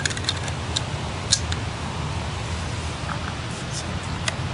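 Wind rumbling on the microphone, with a few light clicks and rattles of handling, the sharpest a little over a second in.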